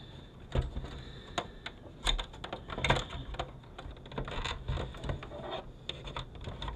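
Irregular clicks and light knocks of a plastic-and-sheet-metal electronics housing being handled and pressed together by hand while the case of a minivan's rear-seat video entertainment unit is reassembled.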